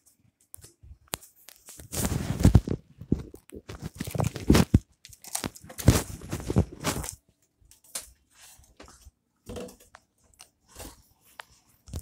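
Crunching, rubbing handling noise from a phone being gripped and swung about, in irregular bursts that are loudest over the first seven seconds, then thinning to scattered clicks.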